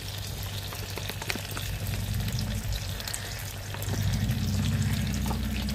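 Prawns frying in hot oil in a steel pan, sizzling with many small crackles and pops, over a low hum that grows louder about four seconds in.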